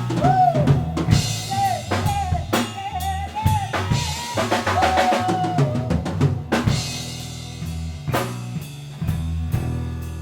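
Band playing live: drum kit and bass guitar keep a groove while a lead melody bends and wavers in pitch over the first six seconds or so. After that the drums and bass carry on alone.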